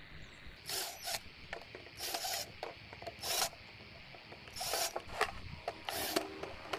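A series of short scrapes and rubs, roughly one a second, from small brass screws and a metal hinge being handled and set against a PVC model cabin.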